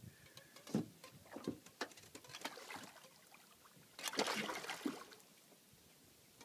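Faint water splashing and sloshing near a boat as a hooked gaspergoo is reeled in, with scattered light knocks and a louder splash of about a second starting about four seconds in.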